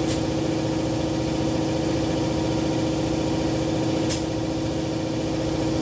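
Air compressor motor running with a steady hum, with two brief sharp clicks, one at the start and one about four seconds in, while a low lawn mower tire is filled through an air chuck.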